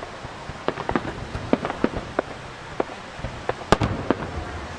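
Starmine fireworks finale: a rapid, irregular string of aerial shell bursts, about fifteen sharp bangs, the loudest about three-quarters of the way through.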